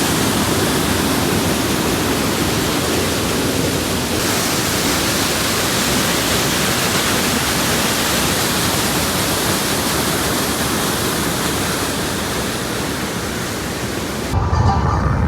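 Sabbaday Falls waterfall rushing in a steady, loud roar of falling water, the sound shifting slightly about four seconds in. Just before the end it cuts off abruptly and a low rumble takes over.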